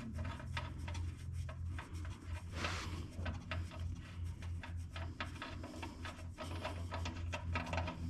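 Engine oil draining out of the drain-plug hole into a catch pan, with irregular splattering and ticking, over a steady low hum.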